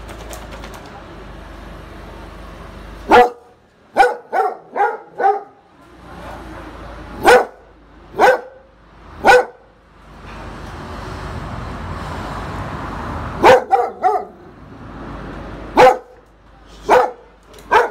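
Dog barking in bouts: a quick run of about five barks some three seconds in, then single barks about a second apart, and more clusters near the end. A steady rushing noise sits under the gaps between barks.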